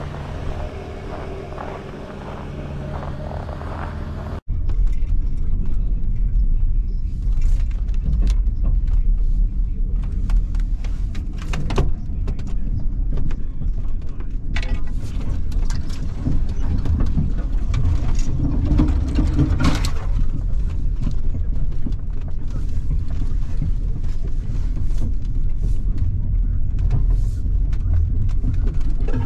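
1996 Ford F-150's 4.9-litre straight-six engine running steadily with an even hum. About four seconds in it switches to inside the cab while the truck is driving: a loud, steady low engine and drivetrain rumble with frequent short knocks and rattles over the rough trail.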